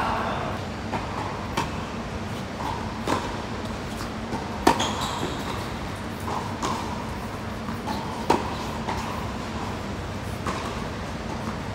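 Tennis balls struck with rackets during a doubles rally on an indoor hard court: a sharp pop every second or two, the hardest hits about five and eight seconds in.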